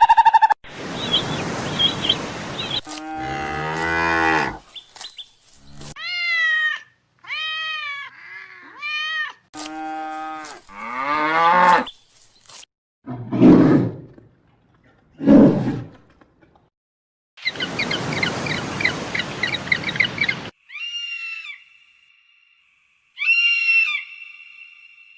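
A string of separate farm and wild animal calls cut one after another, about a dozen in all. Some are pitched calls that rise and fall, others are rough and noisy, and cattle mooing is among them.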